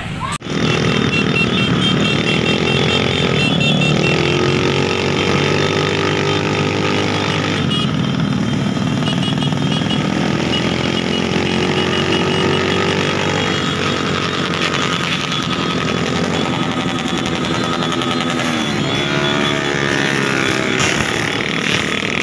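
Many motorcycles riding together in a convoy, engines running and being revved, their pitch rising and falling again and again. The sound starts after an abrupt cut about half a second in.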